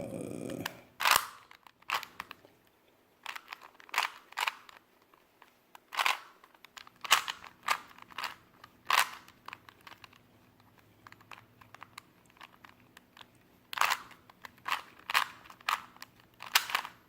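Rubik's Cube being turned by hand in quick runs of twists, the plastic layers clicking and snapping as they rotate, with a pause of a few seconds partway through. These are the final moves that finish the solve.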